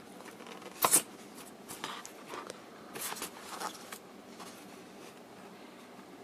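Cardboard box being opened by hand: a sharp knock about a second in, then light rustling and scraping of cardboard and paper for a few seconds as the lid comes off, going quiet near the end.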